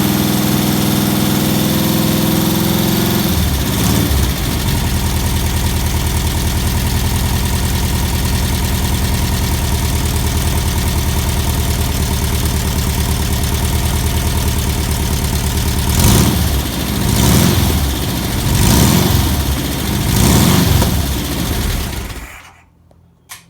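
Rebuilt 1641cc air-cooled Volkswagen flat-four running at a fast idle, then settling to a steady idle. Four quick revs follow near the end, and then it is switched off and stops abruptly. It runs smoothly with no trouble, the first run after a top-end rebuild.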